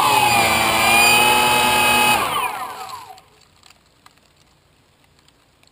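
DJI Phantom quadcopter's electric motors and propellers whirring at a steady pitch, then spinning down and stopping about two to three seconds in as it sets down in grass. A few faint ticks follow.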